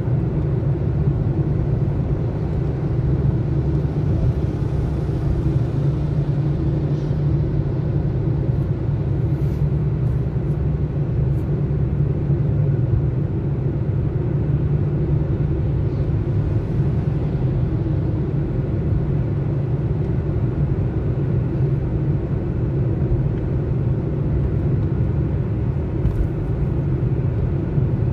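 Steady low rumble of a car cruising at highway speed, engine and tyre-on-road noise heard from inside the cabin.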